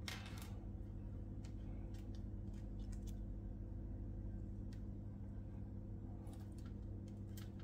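Small handling sounds of monofilament fishing line and plastic tubing being worked by hand on a wooden table: scattered light clicks and rustles, over a steady low hum.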